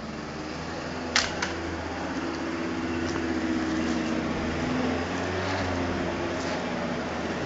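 A motor vehicle's engine running: a steady low hum that slowly grows louder. Two sharp clicks come a little over a second in.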